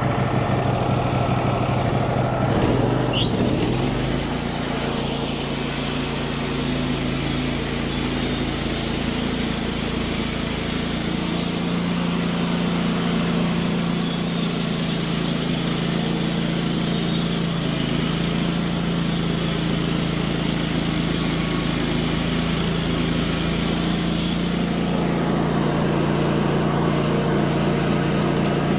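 Wood-Mizer LT15 portable band sawmill running, its engine working steadily as the band blade cuts through a hard maple log. The engine note shifts in the first few seconds, then holds steady.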